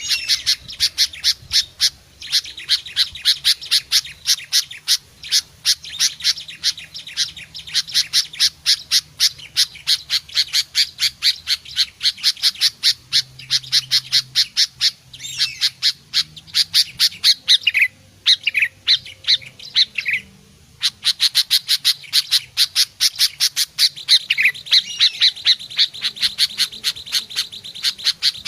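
Sooty-headed bulbul (kutilang) calling in a fast, even string of short, harsh notes, about five a second. A few sliding whistled notes break in around two-thirds of the way through and again near the end, and there is a short pause just after the middle.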